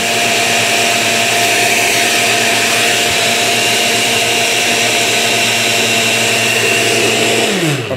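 Countertop blender with a glass jar running steadily at high speed, blending a thick milkshake, with a constant motor hum. Near the end it is switched off, and the motor's pitch falls as it spins down.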